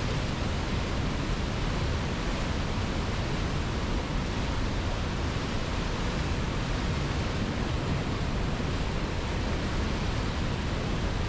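A river's rushing water as a steady, unbroken noise.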